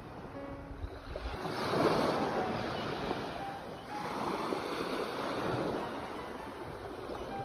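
Ocean waves breaking and washing up on the shore in slow surges, swelling loudest about two seconds in and again near the middle.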